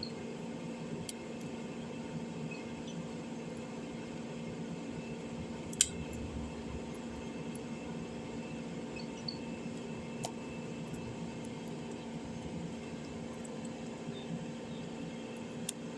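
A few small sharp clicks over a steady low hum, the loudest about six seconds in: plastic phone parts being handled and pressed back into place while a smartphone is reassembled.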